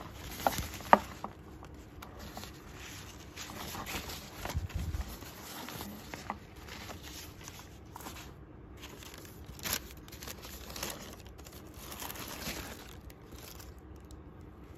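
Tissue paper and a cloth drawstring bag rustling and crinkling as a shoebox is unpacked and a shoe is lifted out, with irregular handling clicks and two sharp knocks about a second in.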